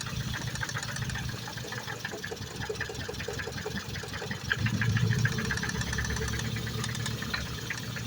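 Ford Focus ST engine idling with a loud, rapid ticking knock; the engine sound swells louder about four and a half seconds in. The owner suspects an injector, a cam phaser or an ignition coil with a split.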